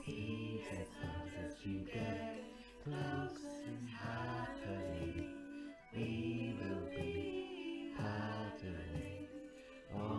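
Choir singing a sea shanty, with the lines "Sea gets loud as you get close" and "Happily, we will be paddling on the sea".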